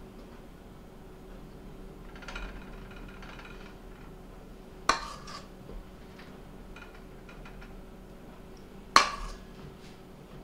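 A spoon scooping muffin batter into a dark metal muffin tin: faint scraping, then two sharp clinks of the spoon against the tin about four seconds apart.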